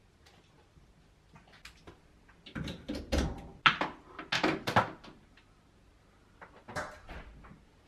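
A series of knocks, clunks and scraping handling noises, loudest from about two and a half to five seconds in, with a few more near the end.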